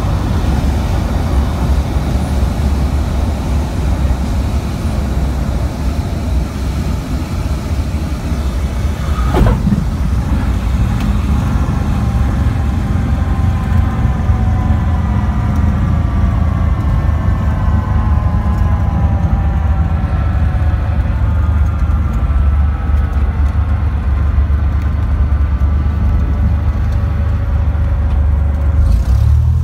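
A Cessna 182's piston engine and propeller at low power, heard from inside the cabin as a steady low drone with rushing air during the landing roll. There is one sharp knock about nine seconds in. Through the second half a set of thin whining tones slowly falls in pitch as the aircraft slows.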